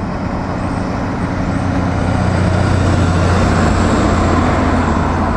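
Diesel concrete mixer truck driving past on a road with passing traffic. Its engine drones low and steady over tyre noise, growing louder toward the middle as it comes close.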